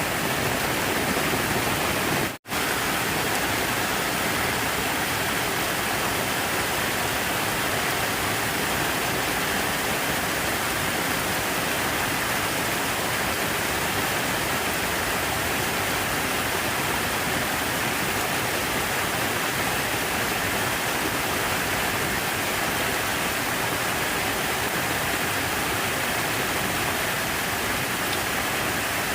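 Steady rush of falling water from an outdoor water feature, an even hiss with no rhythm. It drops out for an instant about two and a half seconds in.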